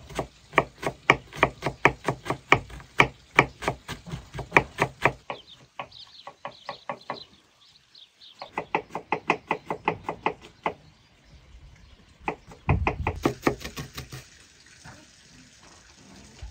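Kitchen knife chopping an onion on a wooden cutting board covered with cheesecloth: quick, even knocks at about four a second, in three runs with short pauses between.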